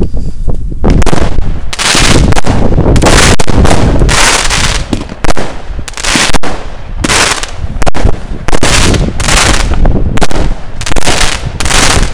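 A small consumer fireworks cake (multi-shot launcher) firing, a rapid string of sharp bangs about one every half-second to second as its shots launch and burst overhead.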